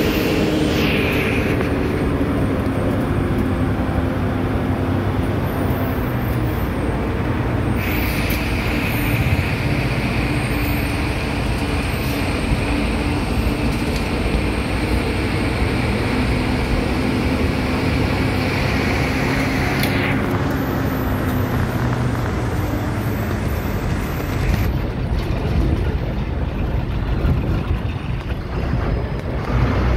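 Bus engine running steadily while driving, heard from inside the cabin at the front, with road rumble. A higher hiss joins for about twelve seconds in the middle.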